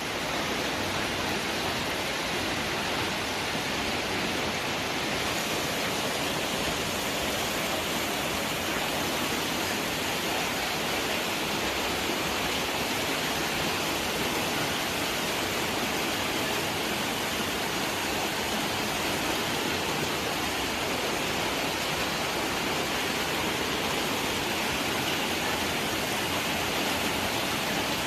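Heavy downpour of rain and hail, a dense steady hiss.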